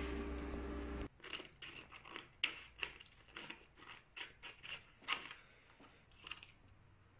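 Laser printer running steadily for about the first second as a printed sheet feeds out, then cut off. After that, scissors snip through a printed sheet of water slide decal paper in a quick, uneven run of sharp snips that thins out near the end.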